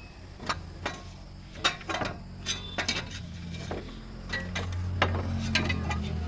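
Irregular sharp metallic clicks and clinks of mechanical work, over a low hum that grows louder in the second half.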